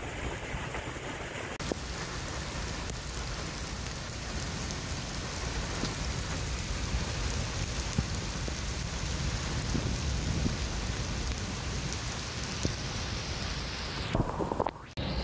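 Heavy rain pouring onto pavement and a flooded street: a steady, dense hiss with a low rumble underneath. The sound drops out briefly near the end.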